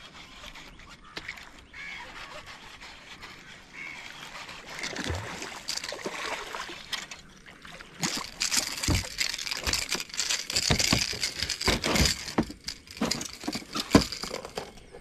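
Water splashing and sloshing, with irregular knocks, getting louder and busier about halfway through.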